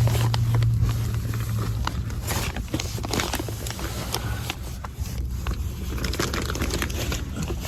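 A person squeezing through a tight gap beside a hard duct: clothing and body scraping and rustling against it, with many irregular knocks and scrapes.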